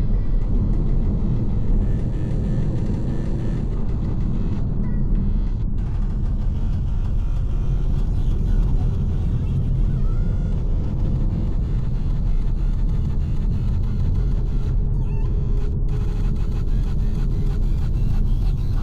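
VW T-Roc driving, a steady low rumble of engine and road noise with a faint engine tone that drifts slightly up and down in pitch.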